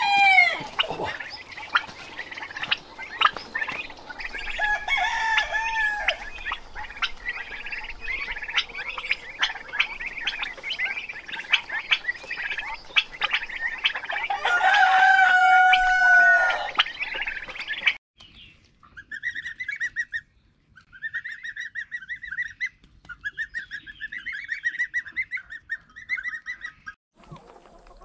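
Farmyard poultry chirping and clucking while a rooster crows, the longest crow about 14 seconds in. After a cut about 18 seconds in, goslings peep in short, repeated high calls.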